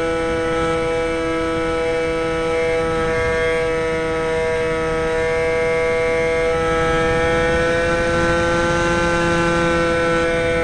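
Aerobird RC plane's electric motor and propeller running steadily in flight, a continuous whine that rises a little in pitch about eight seconds in. It is heard close-up from a camera mounted inside the plane's fuselage, with a rush of air noise underneath.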